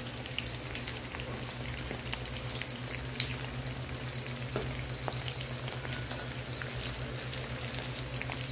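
Fried eggplant and sautéed shrimp paste (bagoong alamang) sizzling in a frying pan, with small scattered crackles and pops over a steady low hum.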